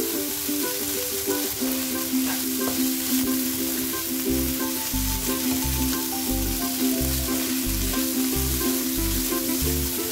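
Fried rice sizzling in a wok as it is stirred and tossed with a spatula, over background music whose steady bass beat comes in about four seconds in.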